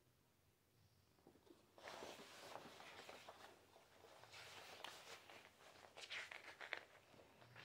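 Quiet rustling and crinkling of a large paper booklet being handled and its pages turned, starting about two seconds in.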